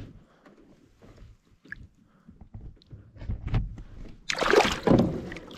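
Lake water sloshing around a bass held at the surface beside a canoe for release, then a loud splash about four seconds in as the fish is let go and kicks away.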